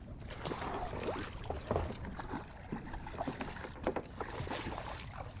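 Irregular small knocks and water sloshing against a kayak hull.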